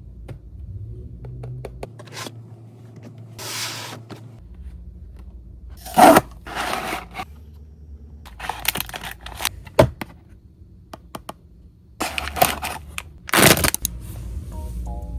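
Blind box packaging being handled and torn open: several short bursts of rustling and tearing wrapper, with scattered clicks between them. The loudest tears come about six seconds in and again near the end.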